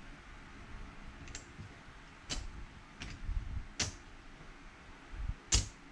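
Casino chips clicking against each other as they are handled and stacked, about five sharp separate clicks a second or so apart.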